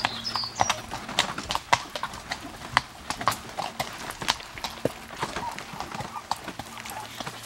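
Hooves of a harnessed horse pulling a cart clip-clopping on a dirt and grass trail, a few hoofbeats a second at a steady pace.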